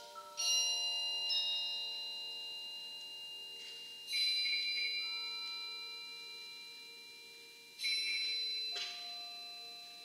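Percussion ensemble playing a slow, sparse passage on mallet percussion. Three bright, bell-like chords are struck about four seconds apart, and each is left to ring and fade slowly over soft, held lower notes.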